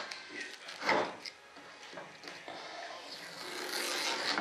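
Hands working parts on a workbench: a sharp knock about a second in and a few lighter clicks, then a rubbing, scraping sound that builds toward the end.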